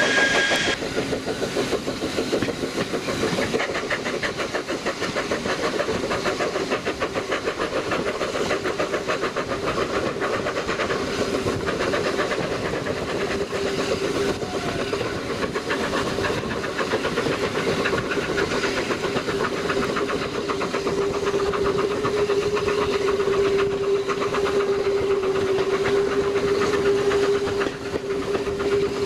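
Steam train running: a steady hiss with a fast, even beat. A steady hum grows louder from about halfway.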